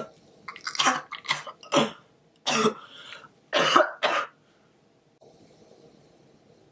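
A young man coughing hard, about seven short coughs in quick succession, the later ones into his sleeve; the coughing stops about halfway through.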